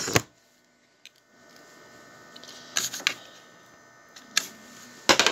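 Faint steady hum of an old desktop PC running, with a few thin steady tones in it. Sharp, short clicks come twice close together about three seconds in, again near four and a half seconds, and once near the end.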